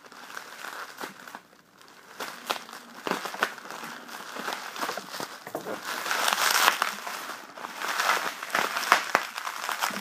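Plastic bubble wrap being gripped and pulled at by hand, crinkling and crackling irregularly and getting louder in the second half as the tough wrap holds out against being ripped open.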